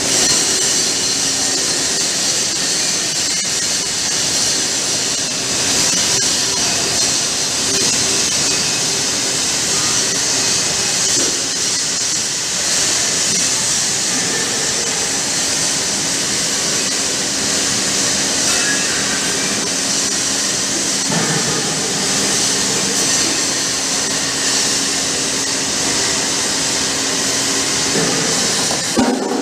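Tumblast shot blasting machine running: a loud, steady hiss over a low, steady machine hum.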